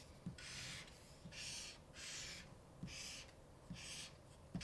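Crayola felt-tip marker drawing straight lines on paper: about five faint strokes, each about half a second long and each starting with a light tap as the tip touches down.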